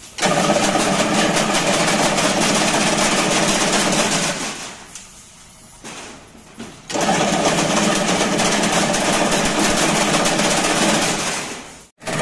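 Chain link fence weaving machine running with a fast mechanical clatter. It stops for about two seconds in the middle, starts again, and cuts off near the end.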